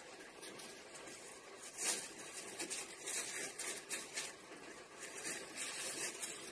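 A plastic grocery bag crinkling and rustling in the hands as a pull string is wrapped and tied around it, with a sharper crinkle about two seconds in.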